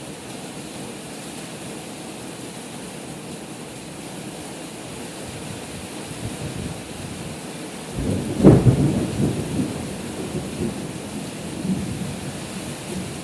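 Heavy rain falling steadily, then a sudden loud thunderclap about eight seconds in, rumbling on for several seconds.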